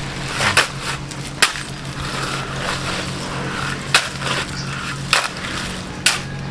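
Steel shovels scraping and crunching through a wet pile of gravel, sand and cement as concrete is mixed by hand, with a sharp scrape every second or so, irregularly spaced. A steady low hum runs underneath.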